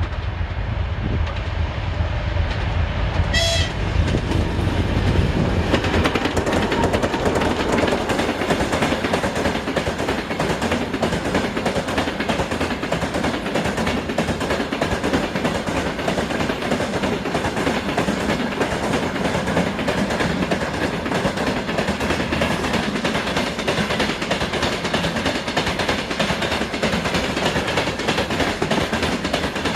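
A 2TE10M diesel locomotive rumbling past, its low engine sound dropping away after about four seconds, with a brief high tone just before. Then the train's wagons roll by with a steady clickety-clack of wheels over the rail joints.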